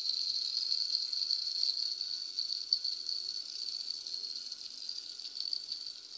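Chicken shashlik skewers sizzling in hot oil in a frying pan, a steady hiss that eases slightly toward the end.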